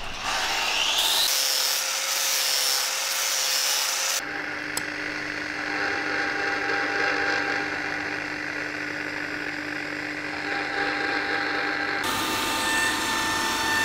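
Workshop power tool running: an electric grinding wheel's motor hums steadily while a small aluminium plate is ground against the spinning wheel to shape a skate spacer. The sound changes abruptly about four seconds in and again near the end.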